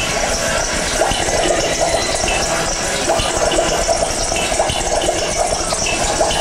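Fairground ride machinery running with a steady, loud mechanical rattle.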